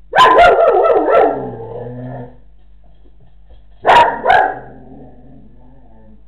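German Shepherd mix barking: a quick run of barks that trails off over about two seconds, then two sharp barks about four seconds in. The dog is barking while left alone at home, unable to settle.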